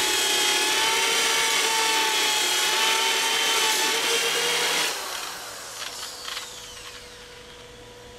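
Electric drill spinning an abrasive disc against the old filler coating of a fibreglass boat hull, running steadily with a high whine. About five seconds in it is switched off and winds down with a falling whine, with a couple of light knocks.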